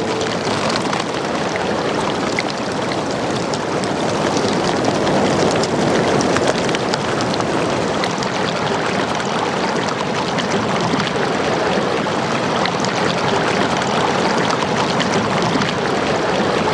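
Steady rushing of flowing water, an even noise flecked with faint fine ticks.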